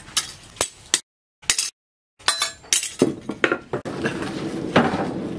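Sledge hammer blows on a handled cutting chisel set against a steel tractor disc on an anvil: a quick series of sharp metallic clinks. From about four seconds in, a charcoal forge fire makes a steady rushing noise, with one more clink under it.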